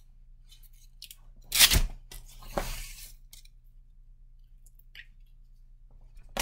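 Clothing and gear handling: a short, loud rustle about one and a half seconds in, a softer one about a second later that fades out, and another at the very end, with faint rustling in between.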